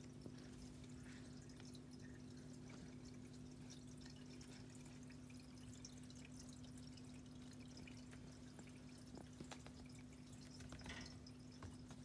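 Near silence: a steady low electrical hum with scattered faint ticks and taps, a few more of them close together about eleven seconds in.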